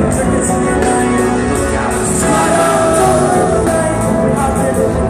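A live rock jam band playing loud through a concert hall's PA, heard from within the crowd: a steady drum beat under keyboards, guitar and bass.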